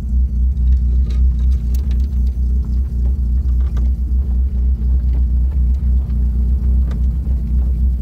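Vehicle driving over rough ground: a loud, steady low rumble with scattered light knocks and rattles.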